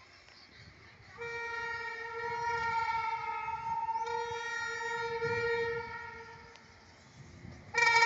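Air horn of an approaching WAG-9 electric locomotive, a pair running coupled, sounding one long steady blast from about a second in that fades away after about five seconds. A second, louder blast starts just before the end.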